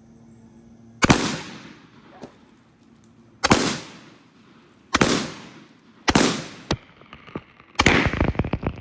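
Remington 11-87 12-gauge semi-automatic shotgun firing five shots, one to two and a half seconds apart, each with a short echoing tail. A dense crackle follows the last shot.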